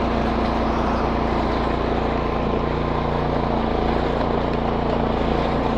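Snow blower engine running at a steady speed, with no change in pitch.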